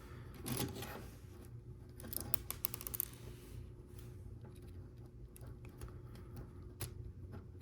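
Plastic Lego Technic pieces clicking and rattling as they are handled and pressed together, with a quick cluster of sharp clicks about two to three seconds in.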